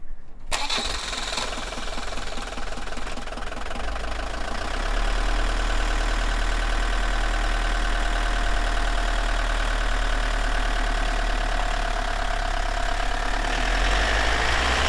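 A postal delivery van's engine starts about half a second in, then runs steadily, growing louder from about five seconds in.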